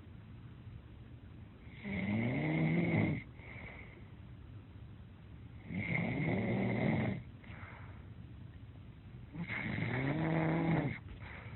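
Snoring: three long snores about four seconds apart, each a pitched rising-then-falling tone with a faint high whistle running through it, and quiet breathing between them.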